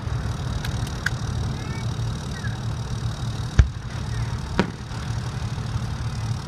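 Fireworks going off: two faint pops in the first second or so, a sharp bang about three and a half seconds in, and another a second later, over a steady low rumble.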